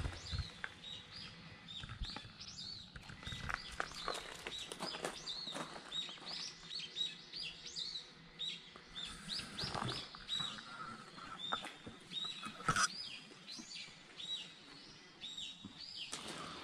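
Small birds chirping busily, many short high chirps several a second, with a few scattered soft knocks and one sharper knock about three-quarters of the way through.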